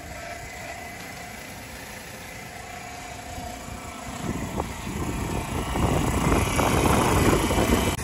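Fill-Rite fuel transfer pump running steadily as fuel flows through the hose and nozzle into a tractor's tank: a steady hum with faint high tones. About four seconds in, a louder, rough rumble rises over it and stays.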